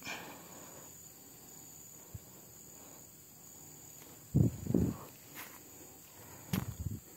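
Steady high insect drone of forest crickets or cicadas, with a short sharp sound right at the start. Loud knocks and rustling from handling the rifle and its scope camera come twice, about four seconds in and again near the end.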